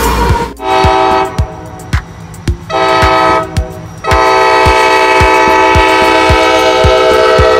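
Diesel freight locomotive air horn sounding a chord: two short blasts of about a second each, then one long blast of about five seconds. Under it, a steady rhythmic clatter of the train's wheels, about three knocks a second.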